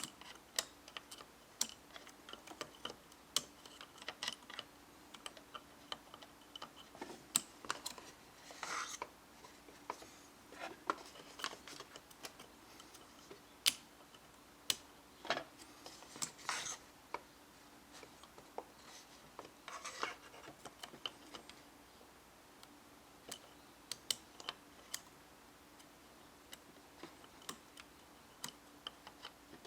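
Scattered faint clicks, taps and a few short scrapes of a small metal tool working a washer loose in the burr chamber of a Breville Barista Express grinder. A faint steady hum runs underneath.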